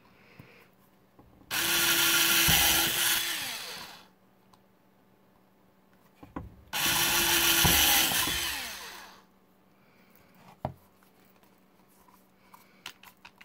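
Black+Decker power drill boring pilot holes through a plastic lawnmower wheel hub: two bursts of drilling, each about two and a half seconds long, the motor pitch dropping as the trigger is let go. A few light knocks near the end as the wheel is handled.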